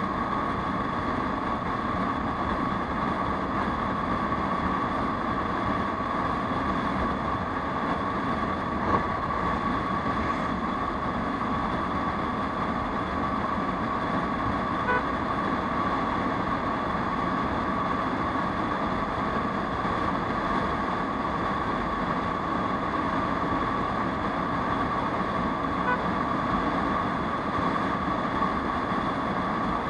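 Aprilia SR 150 scooter's single-cylinder engine droning steadily at cruising speed, mixed with wind and road noise. A couple of short, faint beeps, about halfway through and near the end, are most likely vehicle horns.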